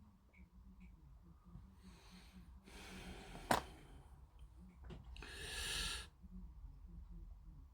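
A few short, hissy breaths or puffs of air close to the microphone, the longest about five seconds in, with one sharp click about three and a half seconds in.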